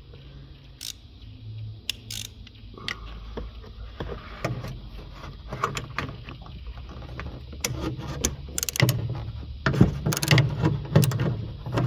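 Hand ratchet turning a socket on a heat-shield bolt: a few single clicks and knocks at first, then runs of ratchet clicks that come thicker and faster toward the end.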